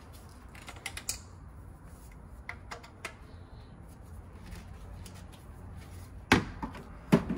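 Light clicks and taps of a short length of PVC drain pipe being handled, followed by two sharper knocks near the end, over a low steady hum.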